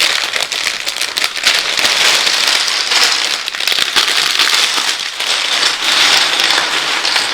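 Plastic Lego parts bags being handled and opened close to the microphone: a loud, continuous crinkling and crackling of thin plastic, with small clicks throughout.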